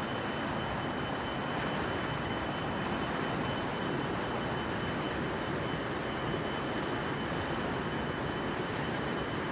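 Steady, even rush of a river running over rapids.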